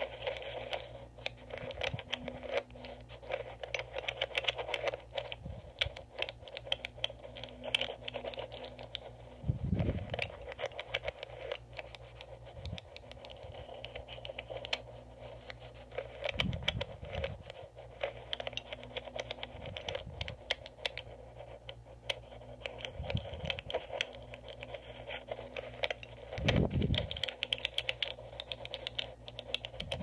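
A lock pick working inside an EVVA MCS magnetic rotor lock under tension, amplified by a contact microphone: a dense run of small metallic clicks and scrapes as the rotors are probed. A few dull thumps come through, and a steady low hum sits underneath.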